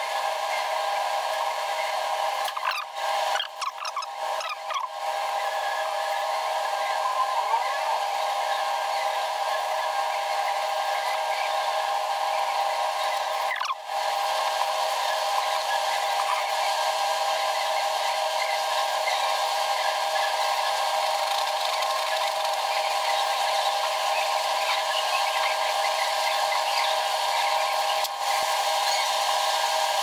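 A steady whirring hum of a small motor, holding several steady tones with a hiss above; it cuts out briefly a few times, around three to five seconds in and again about fourteen seconds in.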